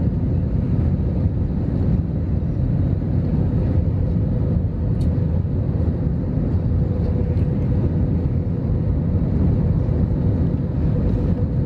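Airbus A321 cabin noise heard from a window seat over the wing on approach with flaps extended: a steady roar of engines and airflow, with a faint steady tone running through it.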